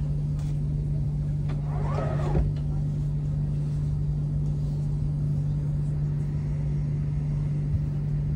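Steady low electrical hum inside a stationary electric passenger train, with a short snatch of a voice about two seconds in.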